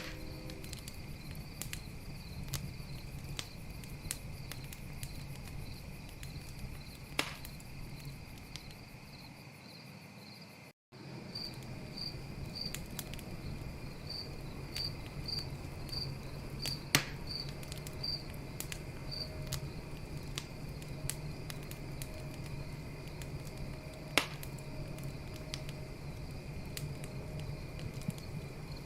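Campfire crackling with scattered clicks and a few sharp pops, over a steady chorus of night insects. A cricket chirps in an even rhythm for several seconds midway, and the sound drops out completely for an instant about eleven seconds in.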